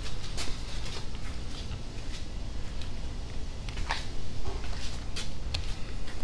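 Light, scattered clicks and taps of small hardware and tools being handled during assembly of an RC crawler's suspension links, with one sharper click about four seconds in.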